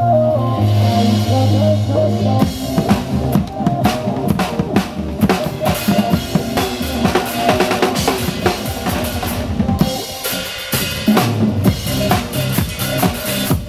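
Drum kit played fast and dense, with kick, snare and cymbal hits, over recorded backing music whose held bass notes fill the first couple of seconds before the drumming takes over.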